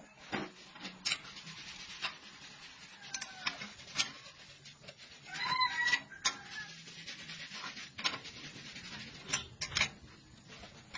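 Scattered sharp knocks and clicks over a scraping, rubbing noise from metal being worked in a homemade bending tool. A cat meows once about halfway through.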